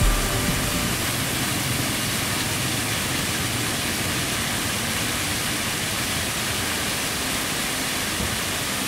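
Steady splashing of a large ornamental fountain, its jets of water falling into the basin in an even, unbroken rush.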